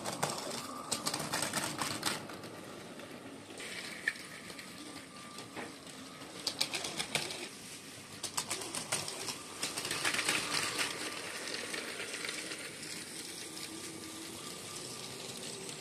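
LEGO trains running on plastic track, their wheels clicking in rapid bunches as they pass over rail joints and the crossing, over a faint steady hum from the battery-powered train motors.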